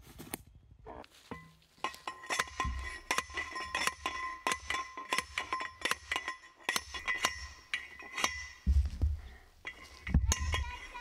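Manual steel post driver slamming down on a sacrificial fitting on top of a sand point well pipe. It makes repeated metal clanks with the steel ringing after each blow, and the heaviest blows come near the end.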